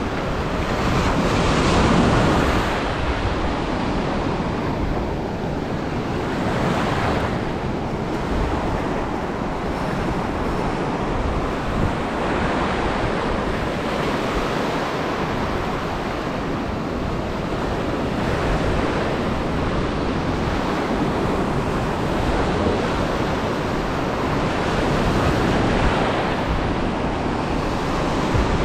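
Ocean surf breaking and washing up the sand in the shallows, a steady rushing wash that swells as each wave comes in, with wind buffeting the microphone.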